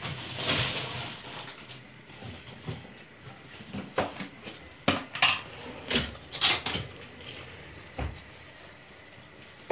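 Kitchen clatter: a shuffling rustle at the start, then a scatter of sharp knocks and clinks of stainless steel pots, lids and utensils being handled on a stone countertop in the second half.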